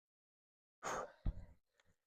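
A short, breathy exhale from a freestyler mid-trick about a second in, with a dull thump just after, then two faint ticks.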